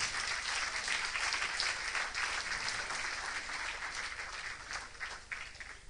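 Audience applauding, the clapping gradually fading and thinning to a few scattered claps near the end.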